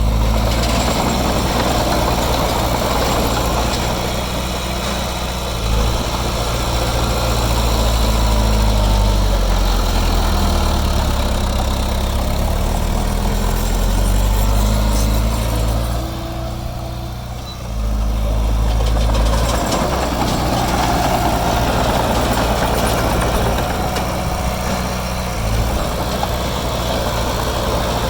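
Diesel engine of heavy earthmoving machinery running steadily, its pitch shifting with load. It eases off briefly about two-thirds of the way through, then picks up again.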